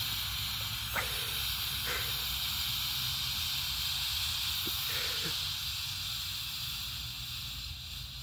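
Black smoke bomb hissing steadily as it pours out smoke, with a few faint clicks in the first seconds; the hiss weakens near the end.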